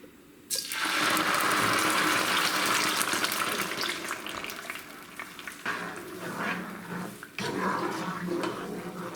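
Blended tomato-and-chile sauce poured into hot oil, hissing and sputtering loudly as it hits about half a second in, then settling to a lower frying sizzle with small spatters.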